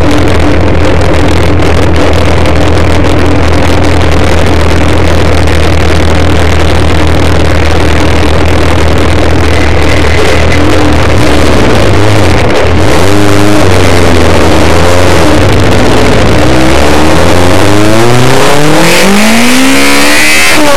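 Toyota MR-S's 2ZZ-GE four-cylinder engine on 52 mm individual throttle bodies, heard from inside the throttle box: the intake holds a steady engine speed for about ten seconds. It then takes a few quick blips of the throttle and climbs steadily in revs near the end.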